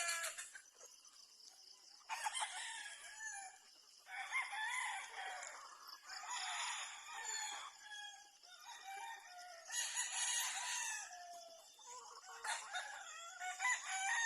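Gamefowl roosters crowing, about five crows one after another across the range, some overlapping, with clucking between them.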